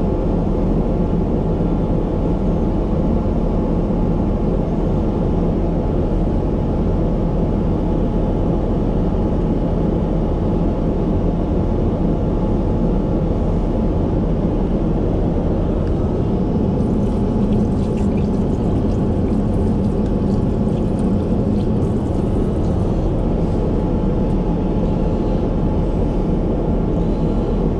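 Steady low rumble of an airliner in flight heard inside its lavatory: engine and airflow noise through the cabin walls. Faint small clicks come in during the second half.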